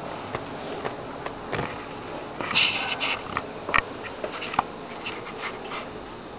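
Light scuffling and scattered clicks of two cats' paws and claws on a tile floor as they wrestle and then run off, with a short rustle about two and a half seconds in.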